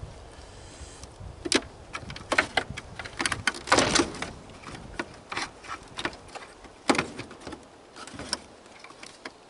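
Irregular clicks, crackles and scrapes of hands pulling at taped wiring inside a washing machine being torn down, with the loudest clusters of crackling a couple of seconds in and again around seven seconds.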